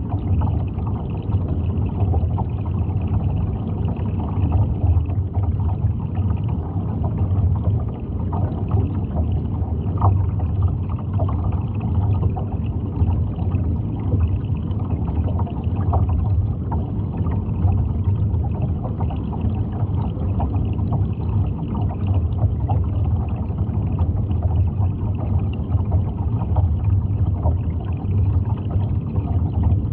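Steady low rumble of water heard underwater, with faint scattered crackles.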